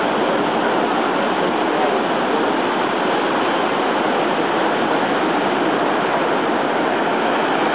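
Ocean surf breaking and washing up over wet sand as a steady, unbroken hiss.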